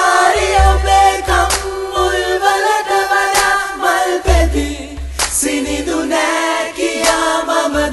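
Sinhala love song playing: voices singing in harmony over deep bass notes.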